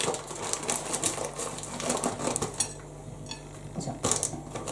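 Rapid light clicking and rustling as grated cheese is scattered by hand onto a slice of bread on a china plate.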